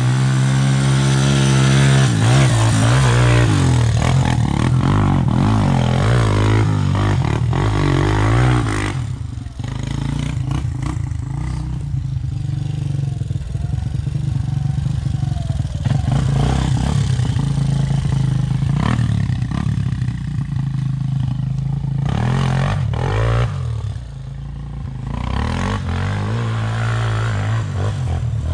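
Off-road engines running: one idles steadily close by while a Yamaha Raptor 350 quad revs up and down on the sandy track, most strongly in the first few seconds.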